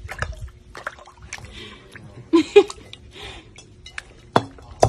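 A puppy pawing and splashing water in a glass bowl: short sloshes and splashes, with sharp clicks of paws against the glass and one louder knock near the end.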